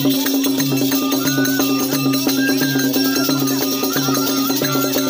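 Live folk dance music: a small folk wind pipe plays a melody of held notes stepping up and down over a steady drone, while a dholak-style hand drum keeps a steady beat. Dancers' costume bells and jingles rattle throughout.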